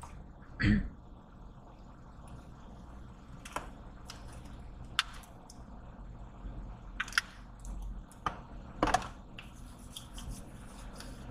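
Stopped car's cabin with a steady low hum, broken by scattered small clicks and taps of things being handled; a dull thump about a second in and a few sharper ticks later.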